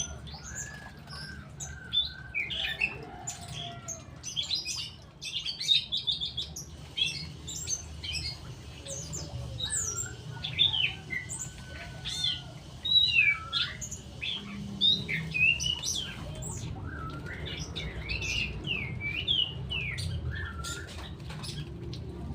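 Several songbirds chirping and calling, with many short whistled notes and quick rising and falling chirps overlapping continuously.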